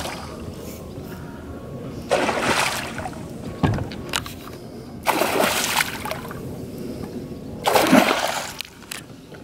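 A hooked pike thrashing at the water's surface, splashing hard three times: about two seconds in, about five seconds in, and loudest about eight seconds in.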